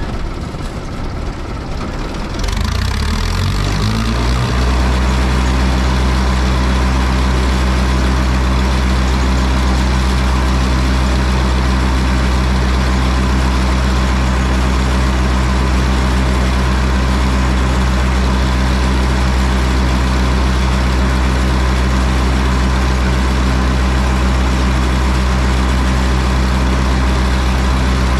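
Case 830 tractor engine revving up a few seconds in, then holding a steady high speed while it drives a Gehl forage blower, which is spinning empty.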